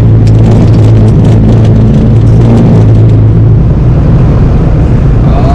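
Loud wind and road noise inside a Jeep Wrangler with a soft top at highway speed: a dense rumble with a steady low drone that drops away about three and a half seconds in.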